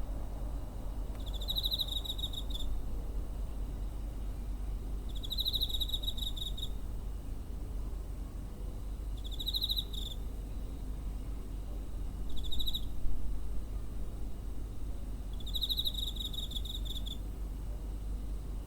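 A cricket chirping in five short trills of rapid pulses, each about a second long and a few seconds apart. Underneath are a faint steady high tone and a low background rumble.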